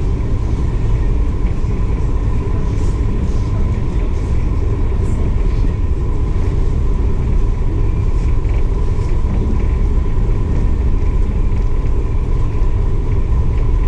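Steady low rumble of a ferry under way, with a constant hum running through it and faint voices of people in the background.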